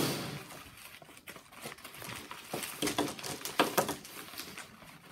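Brown paper bag rustling and crinkling as hands open it and reach inside, in irregular crackles that are loudest a little past halfway.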